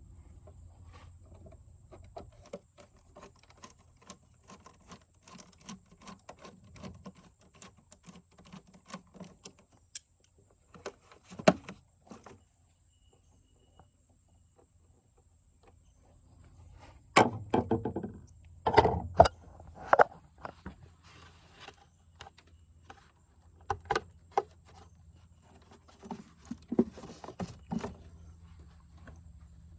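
Hand tools and engine parts clicking and clinking during work in an engine bay, with several louder clunks of metal and plastic parts being handled and set down.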